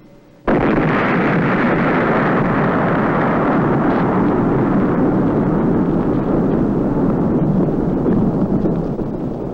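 Blast wave of an atomic bomb test arriving suddenly about half a second in, then a long, loud rumble that slowly fades.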